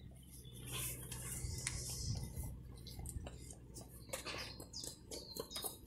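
Faint handling noise from a phone held against a metal grille: scattered light clicks and rustles over a low steady hum.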